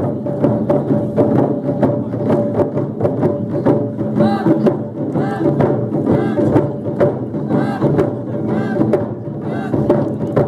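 Japanese taiko drum ensemble playing: a dense, steady run of strikes on several barrel drums, with voices calling out now and then.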